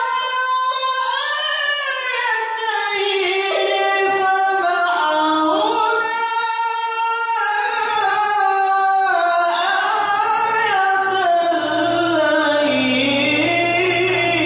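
A male qari chanting Quran recitation in a high, melodic voice. He holds long drawn-out notes that glide slowly up and down, and the pitch dips lower and climbs back near the end.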